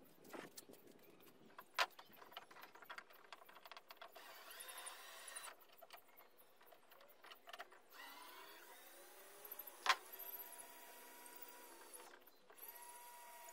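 Cordless drill running in short runs at the canoe's gunwale, speeding up once, with sharp clicks and knocks of handling in between.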